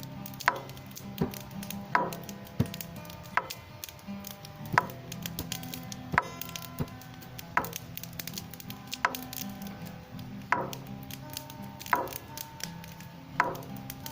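Slow, even beat on a hand drum (бубен), one strong stroke about every second and a half with lighter taps between. Guitar notes ring underneath, and a campfire crackles throughout.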